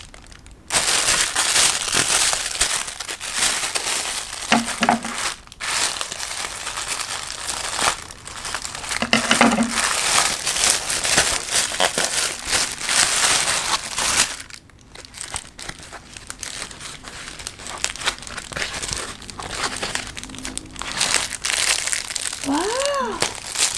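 Plastic packaging crinkling as it is handled and opened: a grey poly mailer bag and the plastic wrapping around the pens. The rustling comes on and off, with short pauses about five seconds in and about fifteen seconds in.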